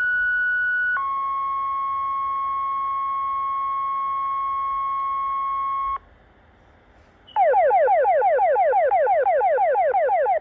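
Fire department radio dispatch tones: a two-tone page, a higher steady tone for about a second and then a lower one held for about five seconds. After a short gap comes a fast run of falling alert tones, about six a second, for three seconds, alerting the company before the dispatcher's voice.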